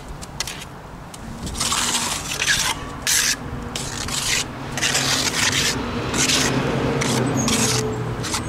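Steel plastering trowel scraping and smearing wet cement plaster onto a cinder block wall, in repeated strokes roughly one a second.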